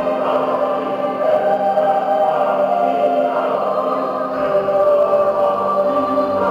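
Choral music: a group of voices singing long held notes over a steady accompaniment.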